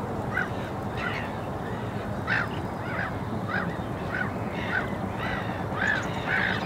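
A rapid series of short, harsh bird calls, about two to three a second and getting louder toward the end, over a steady low background rumble.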